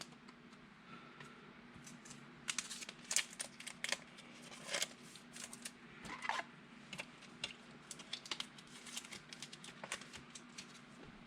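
Trading cards being handled and sorted: soft, irregular clicks and light rustles as the cards are slid and flipped against each other, over a faint steady hum.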